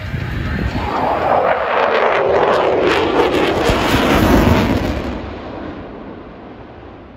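A jet aircraft flying past: a rushing roar swells over a few seconds, sweeps down in pitch as it goes by, peaks about four seconds in, then fades away.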